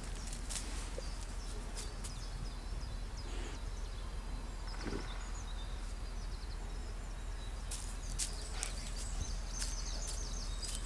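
Czechoslovakian wolfdog digging in soft earth: scattered scrapes and scuffs of paws and snout in the dirt, with faint high chirps in the background.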